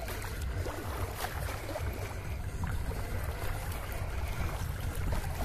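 Wind rumbling on the microphone, with a steady wash of wind-driven water.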